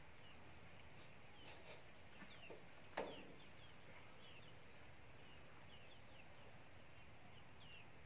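Faint chickens and birds calling: many short falling chirps scattered throughout, with one sharp knock about three seconds in.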